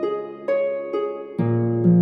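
Gentle instrumental background music with a series of sustained notes; a deep bass note comes in about one and a half seconds in.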